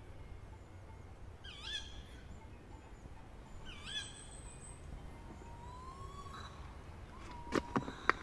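A short whistled call that swoops in pitch, repeated three times about two seconds apart, then a few crunching footsteps on a stony forest path near the end.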